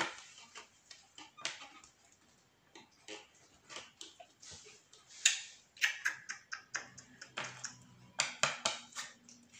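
Sleeved trading cards being shuffled and handled by hand: irregular soft flicks and clicks, with a sharper snap about five seconds in and a quick run of clicks near the end.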